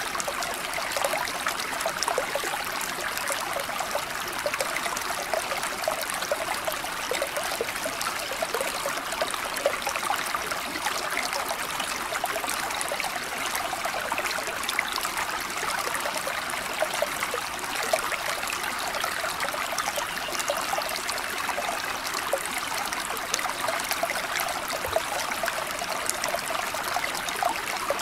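Steady running water, like a flowing stream, with fine splashing and no rise and fall.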